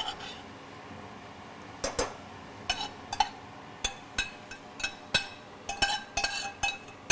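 Metal spoon and fork knocking and scraping against a copper saucepan as diced boiled potatoes are pushed out into a pan of hot milk. The clinks are irregular, each with a brief metallic ring, and they come thicker near the end.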